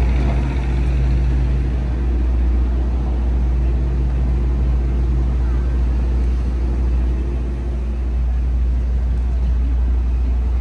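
Steady low hum of an idling engine close by, over the noise of street traffic.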